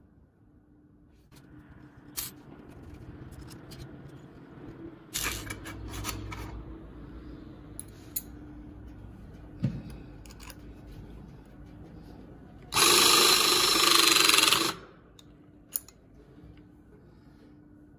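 Battery-powered handheld fastener insertion tool running its motor in two short runs: a brief low one about five seconds in and a louder run of about two seconds near the two-thirds mark, which is the loudest sound. Light clicks of small metal parts being handled come in between.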